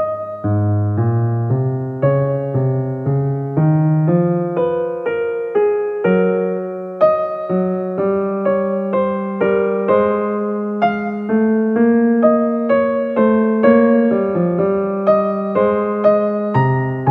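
Background music: a piano playing a gentle melody of single struck notes, about two a second, each fading before the next.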